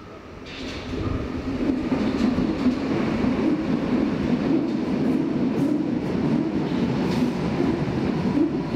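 Berlin U-Bahn train on the U2 line running through the station. It swells over the first second, then holds steady, with a few scattered clicks.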